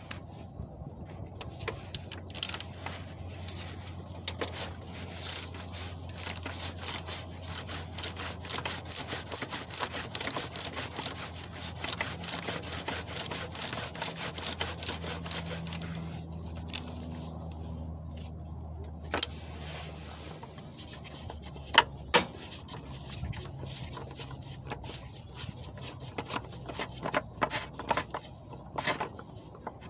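Ratchet with a 32 mm oil filter socket clicking in fast, long runs as the oil filter housing lid is unscrewed. The clicking then thins to scattered clicks with two sharp knocks, over a low steady hum.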